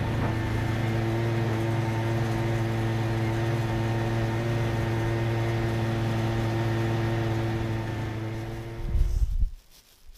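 A vehicle engine running at a steady speed. It swells briefly near the end, then cuts off about nine and a half seconds in.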